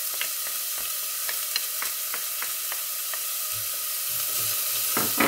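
Chopped onion and minced garlic sizzling in hot oil in a stainless steel saucepan, a steady hiss. For the first few seconds a spatula taps lightly, about three times a second, as the garlic is pushed out of a small bowl into the pan, and there are a couple of louder clicks near the end.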